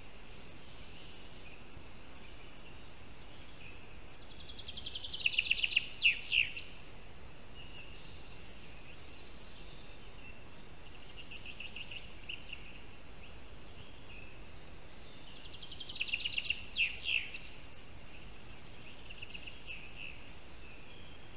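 A songbird singing twice in the forest, about ten seconds apart, each song a quickening run of repeated notes that grows louder and ends in a few sharp downward notes. Fainter trills from other birds come between the songs.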